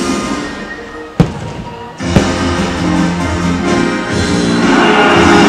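Fireworks show soundtrack music, with two sharp firework bangs about a second apart, the first the loudest.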